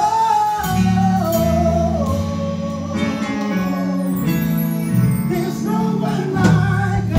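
Live gospel praise and worship music: a lead vocalist sings long held, sliding notes into a microphone, with low bass notes from the band coming in under a second in and carrying on beneath the voice.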